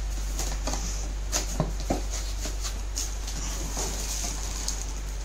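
Cardboard box being handled and its flaps opened, with a few light knocks and scrapes of cardboard about a second and a half to two seconds in, over a steady low hum.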